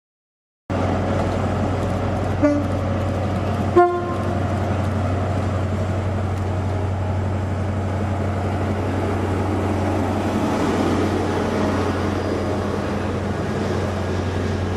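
Class 43 HST diesel power car moving through the station with a steady low engine drone, with two short horn toots about two and a half and four seconds in, the second louder. The sound starts after a drop-out of under a second.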